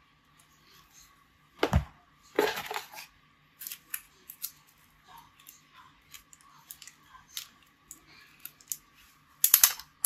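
Unboxing handling noise from a laptop power cord and a small plastic-wrapped power adapter. A knock about two seconds in, a crinkling rustle just after, scattered light clicks, and a louder burst of rustling and clicks near the end.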